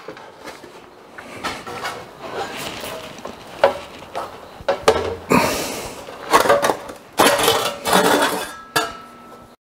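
Thin 1 mm steel sheet being bent by hand around a 4-inch steel pipe jig: the plate flexes and wobbles with a metallic rattle and knocks against the pipe and bench in a series of sharp clanks and clicks.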